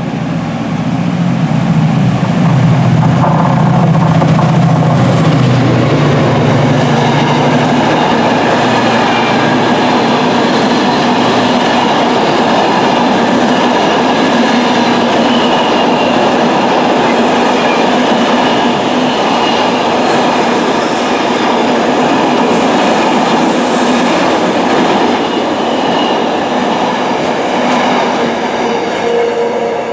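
Class 68 diesel-electric locomotive running through at line speed at the head of an intermodal container freight train, its engine note strongest for the first several seconds. Then the long string of container wagons rolls past with a steady, loud rail noise.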